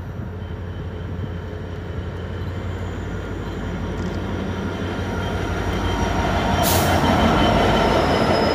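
Class 66 diesel-electric freight locomotive, with its two-stroke V12 EMD diesel engine running, drawing a container train past at close range. It grows steadily louder as the locomotive approaches and goes by, with a short hiss about seven seconds in.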